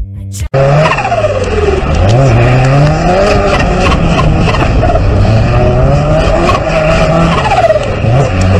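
A car engine revving hard, its pitch sweeping up and down again and again as the car drifts through bends, starting abruptly about half a second in.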